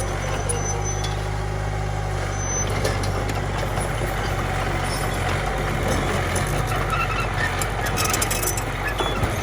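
Engine of a Komatsu mini bulldozer running steadily at an even speed.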